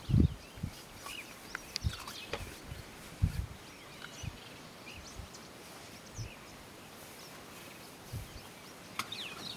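Scattered short bird chirps over a steady faint hiss, with a few low thumps, the loudest just after the start and another about three seconds in.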